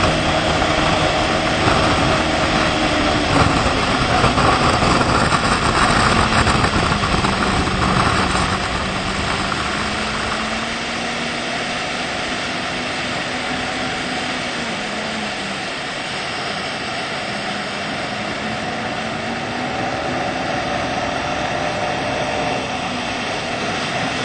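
Motorboat engine running at speed, its note rising and falling a little, over the rush of wind and water from the wake. It is louder for the first eight seconds or so, then settles a little quieter.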